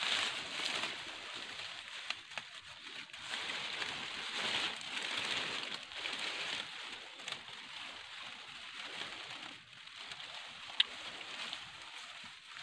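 Dry grass and fern fronds rustling and crackling as hands pull and clear them close to the microphone, in uneven swells, with one sharp click near the end.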